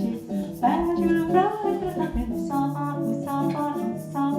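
Bossa nova played live: a voice singing over acoustic guitar with a steady, even strum.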